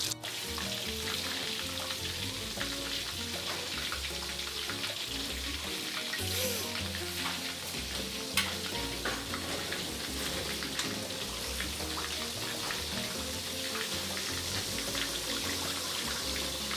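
Batter-coated chicken leg pieces deep-frying in oil in a karahi on a low flame, a steady sizzle and crackle. A metal skimmer stirs through the pieces, with a sharp knock against the pan about eight seconds in.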